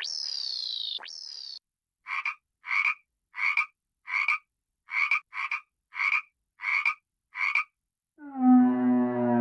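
A frog croaking: a run of about nine short, evenly spaced croaks, roughly one every half second or so. It is preceded by a couple of falling whistle-like glides and followed near the end by a loud sustained pitched note.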